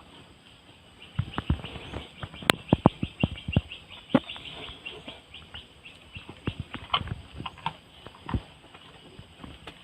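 Cow chewing hard durian seeds: irregular sharp cracks and crunches, thickest in the first half, with scattered cracks later.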